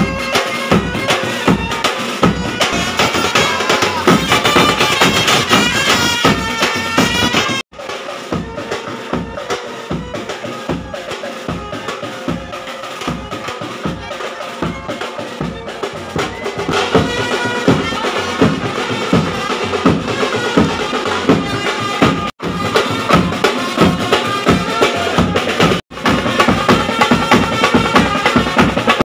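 Dance music with a fast, steady drum beat under a high melody line, breaking off suddenly for an instant three times.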